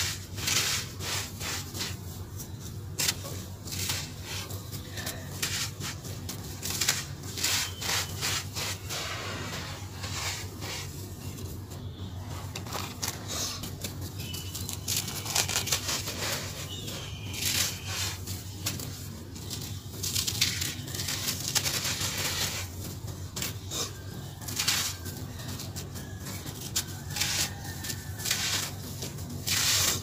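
Dry cement-sand powder crumbled and sifted through bare fingers: gritty crackling as clumps break, and soft hissing as the powder streams back onto the pile. A faint steady low hum runs underneath.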